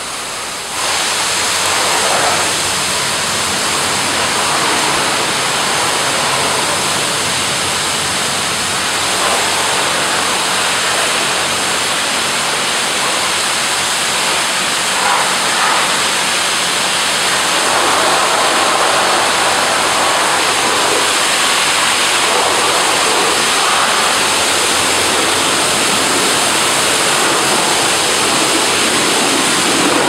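High-pressure water jets of an AA4C AA-360RD dual-arm touchless car wash machine spraying, a loud steady hiss that steps up about a second in.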